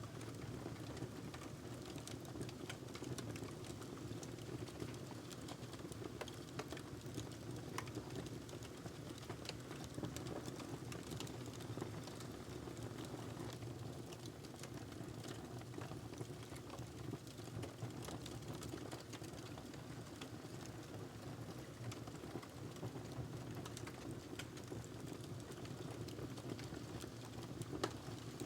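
Wood fire in a fireplace burning steadily with a low rush, and a constant irregular crackle of small pops and snaps from the burning logs.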